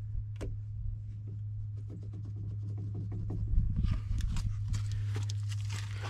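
Hands gripping and rubbing grimy hydraulic hoses in a skid steer's engine bay: a run of scrapes and rustles that grows busier about four seconds in. A steady low hum runs underneath.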